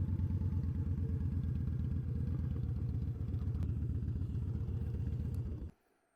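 Cruiser motorcycle's V-twin engine idling with a steady low pulse, then switched off near the end, cutting out abruptly.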